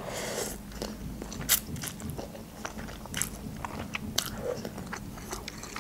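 Close-miked eating of instant noodles: a short slurp as the noodles are drawn in at the start, then wet chewing with scattered sharp mouth clicks.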